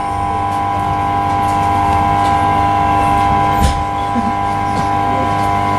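Class 323 electric multiple unit heard from inside the carriage: a steady, multi-tone whine from its electric traction equipment over a low running rumble. A single knock comes a little past halfway.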